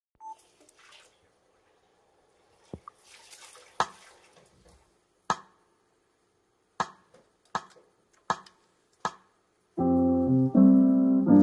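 A run of sharp clicks, the last four about three-quarters of a second apart, then from about ten seconds in a piano accompaniment starts, playing sustained chords.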